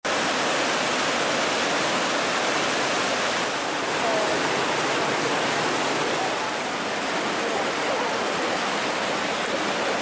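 Whitewater river rapids rushing with a steady, loud noise of churning water.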